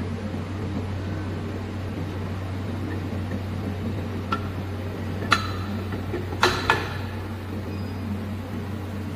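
A few sharp metallic clinks, four in all, with the closest two pair about two thirds of the way in, as the corrugated metal hose and its fitting are handled and seated in the welding machine's chuck, over a steady low electrical hum from the equipment.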